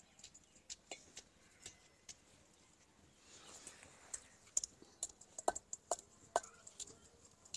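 Wooden pestle knocking in a stone mortar, pounding garlic, as faint irregular knocks that grow sharper in the second half. A short rustle comes about three seconds in.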